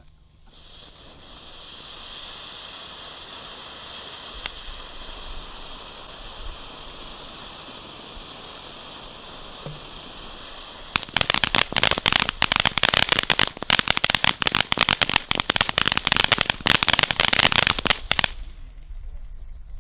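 Ground fountain firework hissing steadily as it sprays sparks. About halfway through, it breaks into a dense, loud crackling of many small pops from its crackling stars, which stops suddenly near the end.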